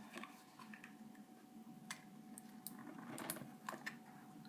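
Scissors snipping at toy packaging: faint, scattered clicks and crinkles, a few coming close together a little past the middle.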